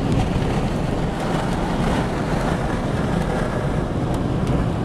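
Steady rumbling noise of wind and rain around a car, heard from inside the cabin, with a few faint ticks of raindrops on the glass.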